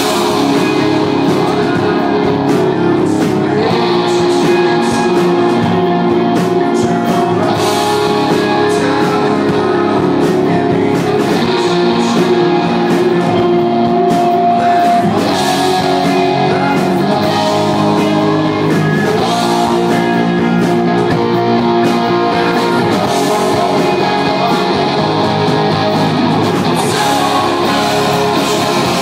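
Live rock band playing loudly and steadily: electric guitars, bass guitar and drums, with a lead vocal singing over them.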